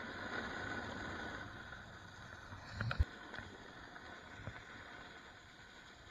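Snowboard sliding through powder snow: a steady hiss that slowly fades, with a couple of sharp knocks about three seconds in.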